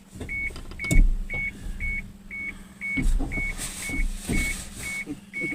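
A car's warning chime beeping steadily about twice a second over a steady low hum, with a few dull thumps in between.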